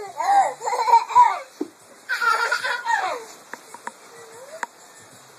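A toddler laughing and squealing in two high-pitched bursts, then a few light clicks and taps near the end.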